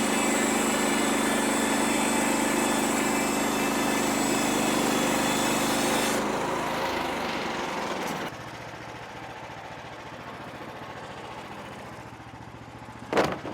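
Small gasoline engine of a portable bandsaw mill running steadily, then dying away and stopping about eight seconds in. A single sharp click comes near the end.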